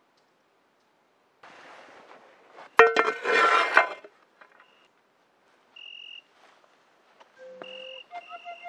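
Stones and an object being handled in a small stacked-rock oven: rustling and scraping, with one sharp ringing clink about three seconds in. A brief high tone follows, and a flute begins playing a melody near the end.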